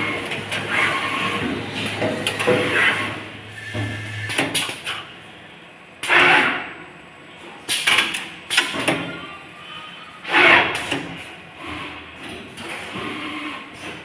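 JM800 automatic lug crimping and tape bundling machine at work: a low hum for about the first four seconds, then several separate sudden hisses and clacks from its mechanisms, a second or two apart.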